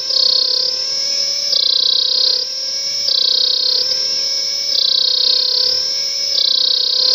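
Cicada singing: a loud, continuous shrill buzz that pulses in a regular alternation, its higher part coming and going about every second and a half.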